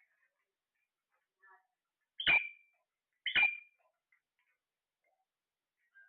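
Parrot giving two short, harsh squawks about a second apart, each ending in a brief high whistle-like tone.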